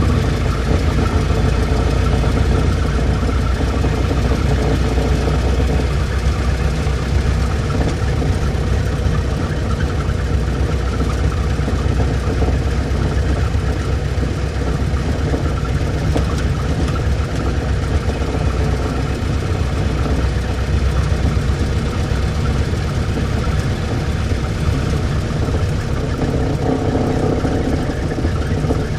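Old car's engine running steadily at a constant speed.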